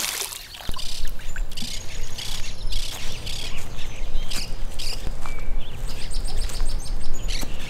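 Birds chirping and twittering in many short, scattered calls over a low steady background hum. A splash into the pond water dies away at the very start.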